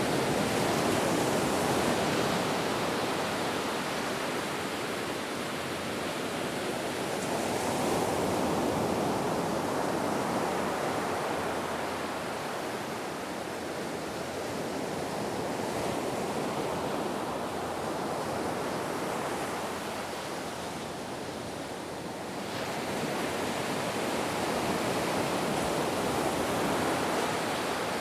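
Ocean waves washing ashore: a continuous surf rush that swells and eases in slow surges every several seconds.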